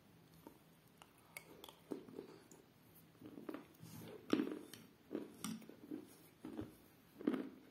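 A person chewing a mouthful of chalk and clay pieces soaked in milk close to the microphone: a few faint clicks, then short crunches about every half second that grow louder after the first couple of seconds.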